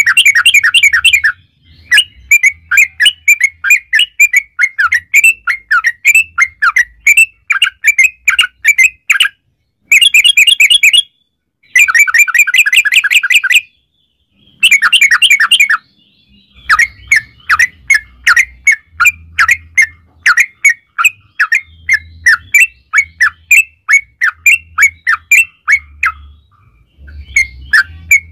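Yellow-vented bulbul (trucukan) calling loudly in fast chattering runs of notes. Dense rapid bursts alternate with stretches of separate notes at about four a second, broken by short pauses.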